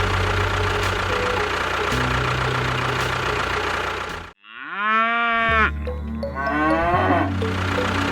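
A small motor runs steadily and cuts off abruptly about four seconds in. It is followed by a long pitched call and then a shorter one, and the low running sound comes back.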